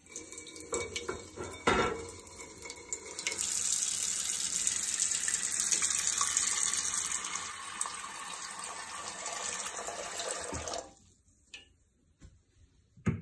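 Wall-mounted stainless pot filler faucet running, its stream of water pouring into a stainless steel pot on the stove. The flow grows louder about three seconds in and shuts off about eleven seconds in. A sharp knock comes about two seconds in, and another right at the end.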